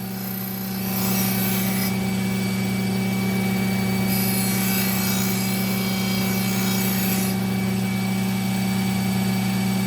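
Powered leather strop running with a steady motor hum while a knife edge is stropped on it twice: a short rubbing hiss about a second in, then a longer one of about three seconds from four seconds in. It is taking the remaining burr off the edge.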